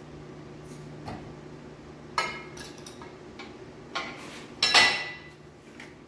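Metal clanking: about five sharp clinks and clanks that each ring briefly, the loudest near the end.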